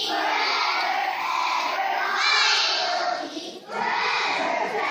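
A large group of children shouting together in a chant, with a short break about three and a half seconds in.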